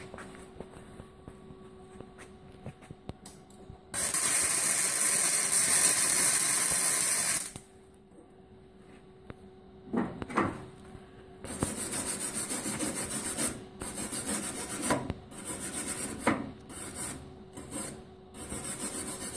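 MIG welder arc crackling and hissing as a crack in a Model T's steel frame cross member is welded: one steady bead of about three and a half seconds, then a string of short stitch-weld bursts near the end.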